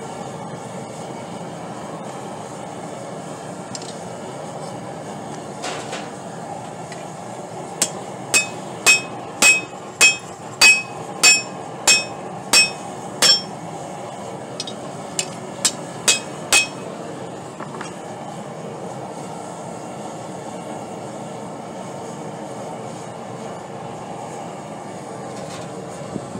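Hammer striking hot rebar on a Doyle steel anvil: a run of about ten ringing blows at roughly one and a half a second, then four or five more after a short pause. Under it is the steady rush of a lit gas forge.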